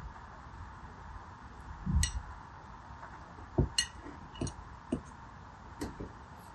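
Gel water beads and a pointed tweezer tip clinking against ribbed glass dishes as the beads are picked and moved: a dull knock about two seconds in, then about six light, sharp clicks, over a faint steady hiss.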